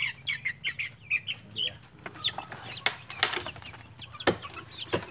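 A flock of young chickens peeping and cheeping in quick, short, high calls. A few sharp knocks sound among them, the loudest about four seconds in.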